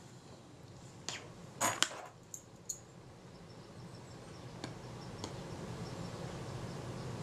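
Small metal clicks and taps of a fine screwdriver and tweezers against the shutter of a Kodak Retina IIIc as its tiny retaining screw is set in place. There are a handful of sharp ticks, the loudest about two seconds in.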